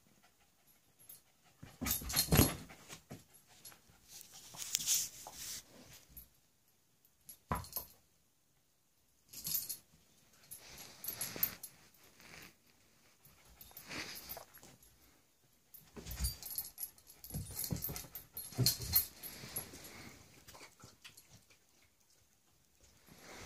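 Two pet dogs, a husky and a curly-coated white dog, playing, with about nine irregular bursts of dog noise a few seconds apart; the loudest comes about two seconds in.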